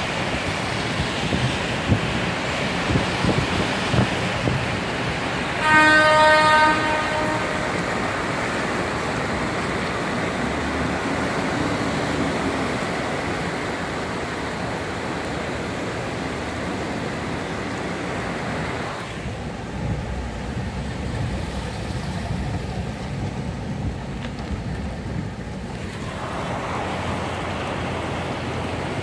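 Cars driving through king-tide floodwater on a city street, their tyres splashing and hissing through the standing water. About six seconds in, a vehicle horn sounds once for about a second and a half.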